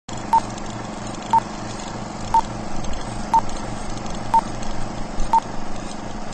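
Electronic beeps: six short pips at one middle pitch, evenly spaced about a second apart, like a countdown or time-signal sequence, over a steady hum and hiss. A higher-pitched beep starts right at the end.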